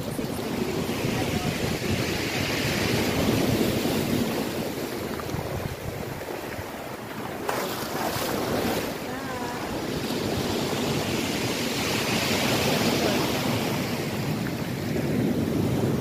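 Sea waves breaking and washing up over a shingle beach, the surf swelling and easing in long surges, with wind on the microphone.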